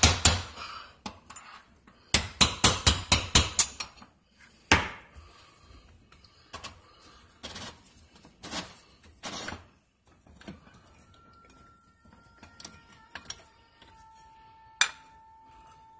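Hammer tapping around the locking ring of a BMW E65/E66 fuel tank sending-unit cover to knock it loose counterclockwise. Two quick runs of about eight sharp taps each, then one harder single blow about five seconds in, followed by a few lighter clicks of parts being handled.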